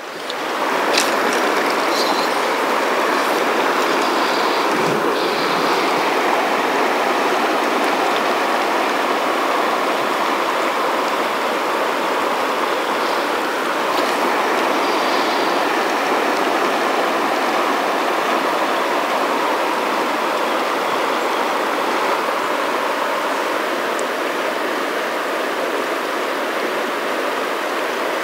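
Fast-flowing river current rushing steadily over a shallow riffle close to the microphone, a constant hiss of water with no pitch to it.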